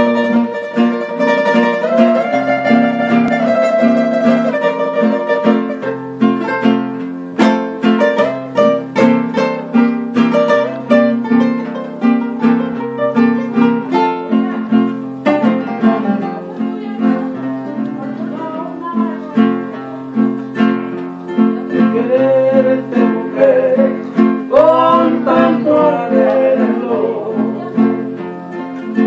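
Two acoustic guitars playing a song together: plucked and strummed chords over bass notes that step back and forth, with a melody line picked above.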